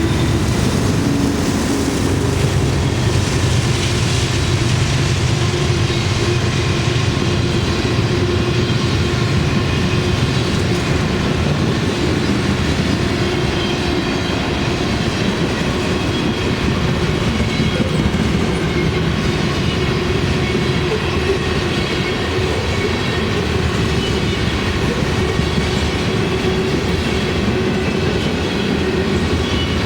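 A train rolling past close by: a steady, loud rumble and rattle of the cars on the rails, running without a break.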